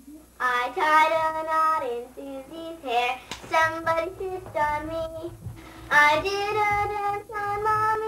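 A girl singing solo, holding notes in short phrases with brief breaks between them.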